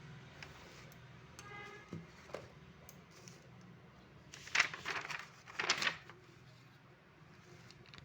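Quiet room tone broken by two brief rustles, about four and a half and six seconds in, with a faint short voice early on.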